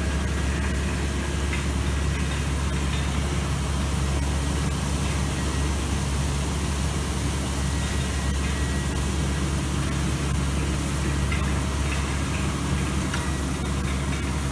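Vervaet self-propelled machine's diesel engine running at a steady drone while pumping water for irrigation, with an even hiss of water spray over it.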